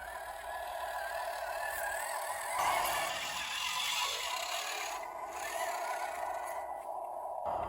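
Small electric motor and gearbox of a radio-controlled construction vehicle whining, its pitch wavering as the speed changes, with a louder stretch of scraping and rattling from about two and a half seconds in.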